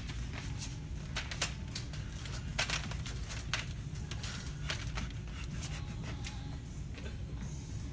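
Handling noise: crinkling plastic packaging and clicks of merchandise on metal shelf hooks, in a scatter of short sharp clicks that is busiest in the first half, over a steady low hum.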